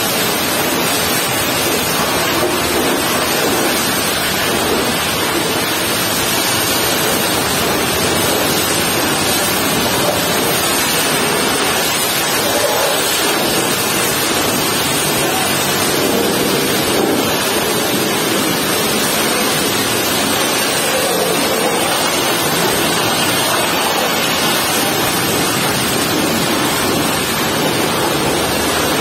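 High-pressure washer jet spraying water against the tarpaulin curtain side of a truck trailer: a steady hiss and spatter of water with no breaks.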